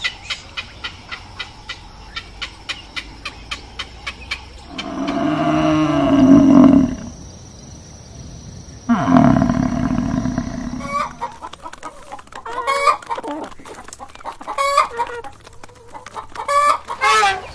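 Chickens: a quick run of sharp ticks, about three or four a second, then a rooster crowing twice in long calls, then hens clucking in short repeated notes.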